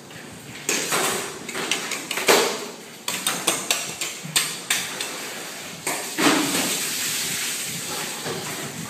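Knife work and handling of a large tuna on a stainless steel table: a series of sharp knocks and slaps, with a quick run of knocks at about four a second a little past the middle.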